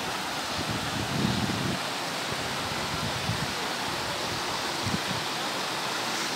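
Mountain stream rushing over rocks in a steady wash of water noise, with a brief low rumble about a second in.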